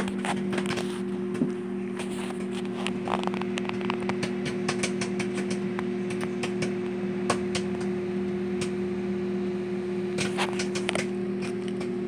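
Old wood-grain Quasar microwave oven running with a steady hum, with scattered light clicks and taps over it.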